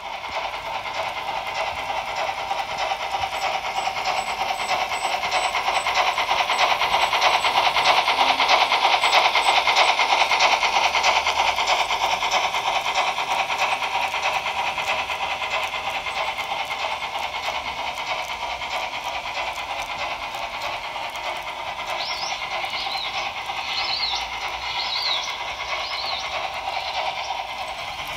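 HO-scale model freight train rolling past: the metal wheels of a long string of hopper wagons click rapidly over the track joints, growing louder as the cars pass close and then holding steady. Near the end come a few brief high-pitched squeals.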